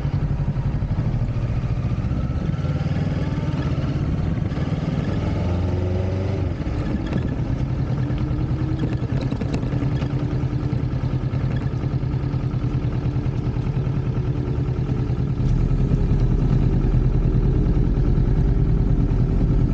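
Motorcycle engine running as the bike rides at low speed, its pitch rising with the throttle a few seconds in and dipping briefly around six seconds. About fifteen seconds in it gets louder, with a deeper rumble.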